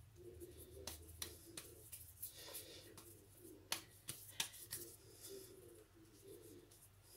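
Faint pats and soft slaps of hands shaping a ball of flour-and-ghee dough between the palms, with a few sharp clicks scattered through it.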